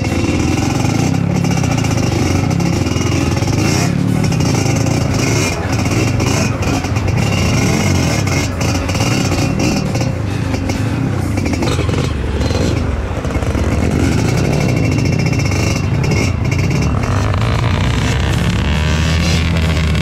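Trail motorcycle engine running under way, its pitch rising and falling with the throttle, with scattered short knocks.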